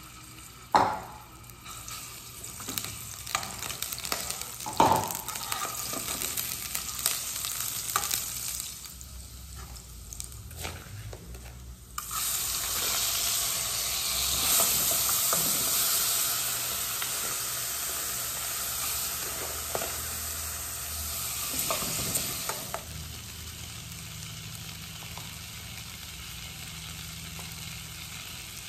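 A few knocks and clinks of a spoon against a pot while garlic cooks in oil. About twelve seconds in, rice scooped into the hot pot sets off a sudden loud sizzle as it starts to fry. It is stirred, and the sizzle drops to a quieter, steady frying near the end.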